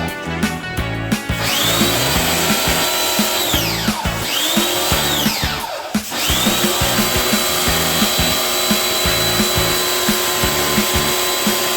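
Power drill running in repeated bursts, spinning up to a steady high whine and winding down three times, over background music with a steady beat.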